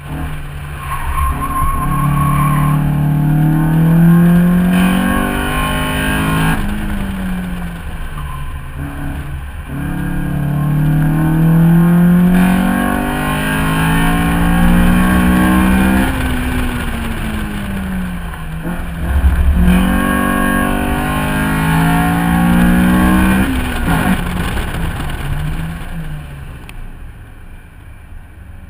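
Honda Civic EK4 VTi's 1.6-litre DOHC VTEC four-cylinder engine driven hard, its pitch climbing in long pulls and dropping sharply several times at the gear changes. Near the end it eases off and gets quieter. Wind and tyre noise reach the camera on the car's side.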